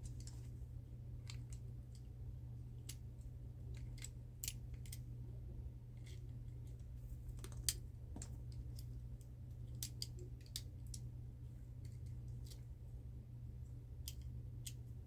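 Irregular sharp clicks and snips from wire cutters cutting the twist-tie wire that holds a die-cast toy car in its packaging, along with handling of the package. A faint steady low hum lies underneath.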